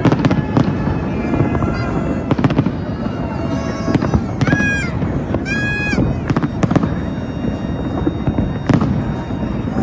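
New Year's fireworks going off in a dense barrage: rapid, overlapping bangs and crackles over a continuous rumble, with a few short whistle-like tones around the middle.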